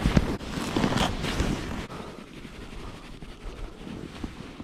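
Wind rushing over the microphone, gusty and loud for the first two seconds, then easing to a lower hiss.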